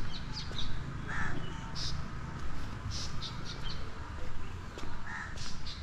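Small birds chirping, short high chirps scattered throughout, over a steady low background rumble.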